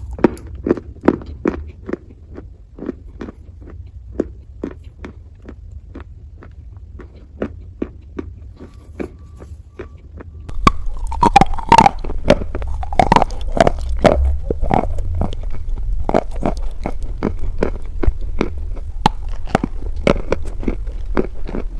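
Close-up chewing of crunchy brown wet clay: a steady run of sharp crunches, about two a second, growing louder and quicker about halfway through.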